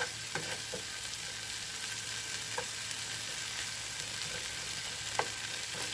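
Shrimp fry with onions and tomatoes sizzling in a nonstick frying pan as it is stirred with a spatula: a steady hiss, with a few sharper knocks and scrapes of the spatula against the pan, the loudest about five seconds in.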